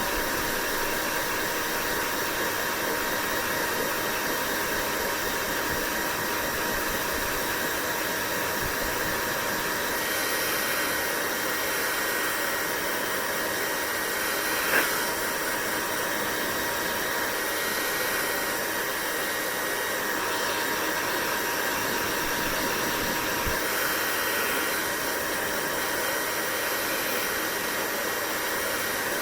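Hair dryer running steadily: an even rushing hiss with a faint constant whine in it. There is one brief small tick about halfway through.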